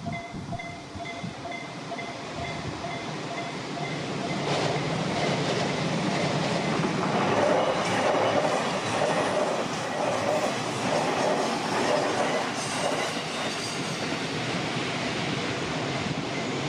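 A Tohoku Main Line train passes over a level crossing: its rumble builds about four seconds in, with a rhythmic clatter of wheels over the rails. Over it the crossing's electronic warning alarm keeps sounding in evenly repeated beeps, a listless-sounding alarm, until the train's noise covers it.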